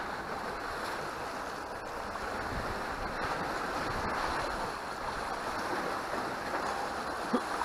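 Sea waves washing and sloshing among the concrete tetrapods of a breakwater, a steady hiss of surf.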